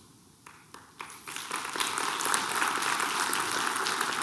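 Audience applauding: the clapping starts about a second in and quickly builds to a steady level.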